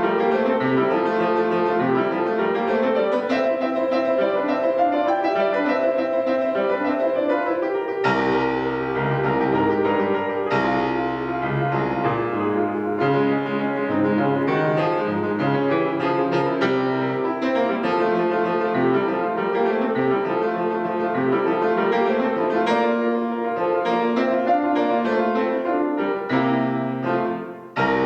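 Solo acoustic piano, a child playing a lively classical piece. Heavy bass notes join in about eight seconds in, and a short drop near the end is followed by a loud chord.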